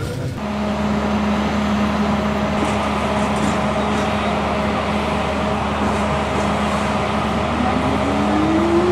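Electric locomotive running with a steady electrical hum, and a whine that rises steadily in pitch over the last second and a half.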